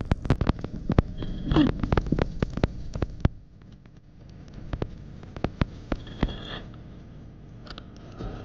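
Sounds picked up underwater: a dense run of sharp clicks and knocks over the first three seconds, then quieter water noise with a few scattered clicks.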